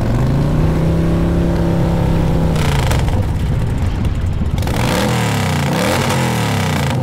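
A motorboat's engine runs under way with wind and water hiss. A little over halfway through, its note begins sweeping up and down.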